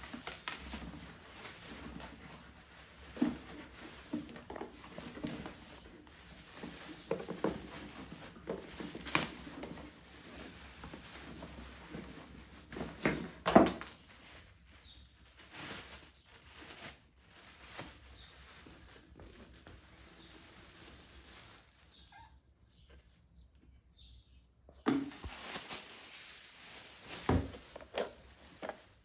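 Clear plastic bag rustling and crinkling as it is pulled off a new drip coffee maker, mixed with irregular knocks and clicks from handling the machine's plastic parts. A few sharp knocks stand out, the loudest about halfway and near the end, and the sound drops away briefly about three quarters through.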